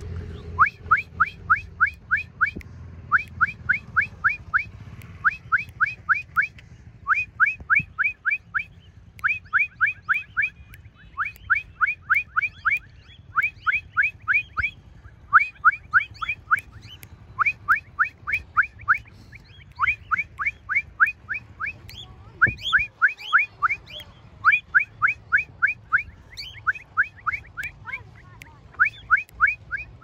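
A person whistling to call back free-flying cockatiels: quick runs of short rising whistle notes, repeated over and over every second or two.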